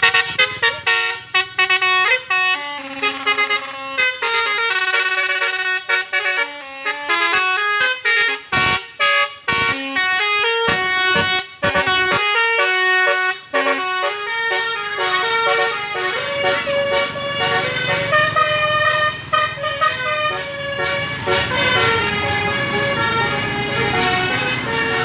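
Basuri musical air horn playing a tune in sustained notes that step from pitch to pitch, with short breaks between phrases in the first half. A low steady rumble runs underneath from about halfway.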